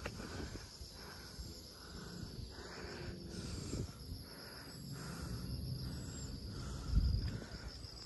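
Cicadas calling in the forest: a steady, high continuous buzz, with a low thump about seven seconds in.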